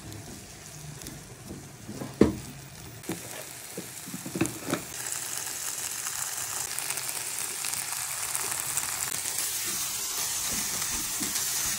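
Chopped vegetables sizzling as they stir-fry in a nonstick pan, stirred with a silicone spatula. A few sharp knocks come in the first five seconds, the loudest about two seconds in, and then the sizzle grows steadily louder.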